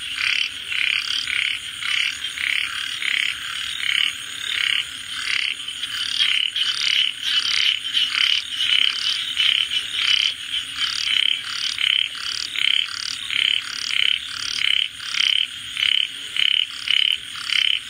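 Frogs croaking in a regular, rapid series of calls, about two a second, over a faint steady high-pitched hum.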